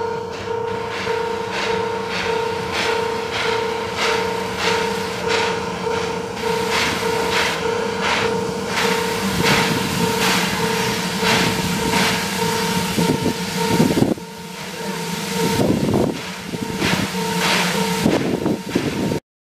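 C11-class steam tank locomotive drawing slowly into a station, a rhythmic series of sharp knocks that grows heavier and louder in the second half, with a few loud bursts near the end. Behind it a level crossing alarm rings with an even, repeating two-tone clang until just before the end.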